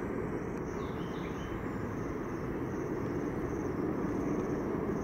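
Distant airliner engine rumble, steady and slowly growing louder as the aircraft approaches, with insects chirping faintly in a pulsing rhythm above it.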